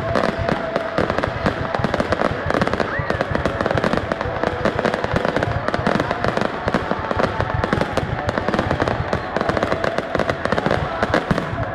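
Aerial fireworks display: shells bursting in a dense, unbroken barrage, one bang after another with no pauses.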